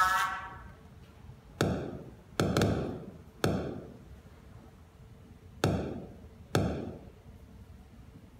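Sound of a single neuron's spikes, recorded by an electrode inside a patient's brain and played over loudspeakers: about six sharp pops at irregular intervals, each trailing off in the hall's echo. The firing is sparse, the cell's activity between bursts.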